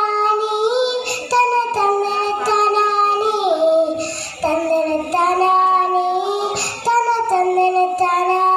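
A young girl singing a Malayalam folk song (nadan pattu) into a microphone, in long held notes that step up and down, with short breaths between phrases.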